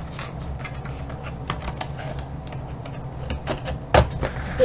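Trading cards being handled and packed into their cardboard box: scattered light clicks and taps over a low steady hum, with one louder knock about four seconds in.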